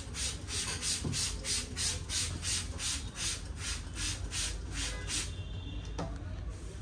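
Brisk, rhythmic rubbing of hands on a person's head and hair during a head massage, about three strokes a second, stopping about five seconds in. A single click follows about a second later.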